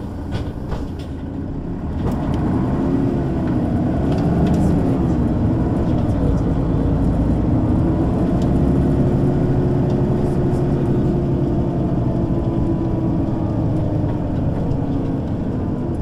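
Engine and drivetrain of a 2005 Mercedes-Benz O 530 G Citaro G articulated bus with a ZF gearbox, pulling away. About two seconds in the engine grows louder and its pitch rises and dips a few times through gear changes, then it holds a steady note as the bus cruises, easing off slightly near the end.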